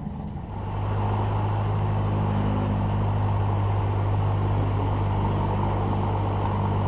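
Piston engine of a single-engine light aircraft heard from inside the cabin. It picks up in power about a second in, then runs at a steady low drone.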